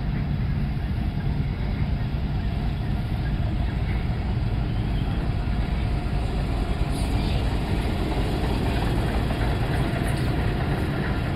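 Train of vintage passenger carriages rolling slowly past, a steady low rumble of wheels on the rails with a few clacks about seven and ten seconds in. The train is hauled by a 2200-class diesel locomotive.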